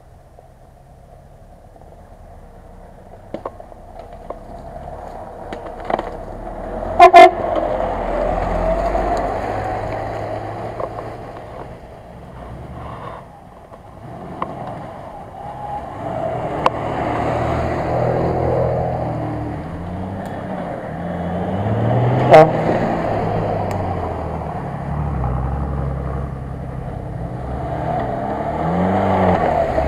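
Off-road 4x4 engines climbing a muddy forest track one after another, growing louder and revving up and down as they pull through. There are two short, very loud sounds, a few seconds in and again about two-thirds of the way through.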